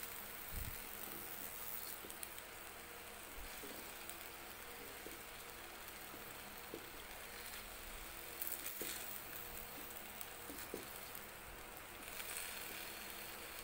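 A plastic spatula stirring vegetables and sauce in a wok: faint scattered clicks and scrapes against the pan every second or two, over a steady low hiss.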